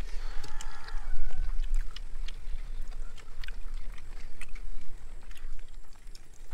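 A steady low rumble, with scattered small clicks and crackles of rice and chicken being eaten by hand off a banana leaf laid on a plastic sheet.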